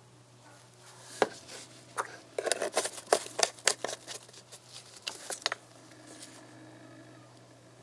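Plastic engine-oil bottle being handled in gloved hands, its screw cap twisted, giving a quick irregular run of sharp clicks and knocks that stops about five and a half seconds in.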